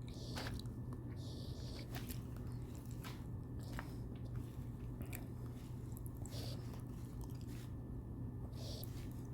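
Faint writing sounds: short scratchy pen or marker strokes and light taps, several per second in irregular bursts, over a steady low electrical hum.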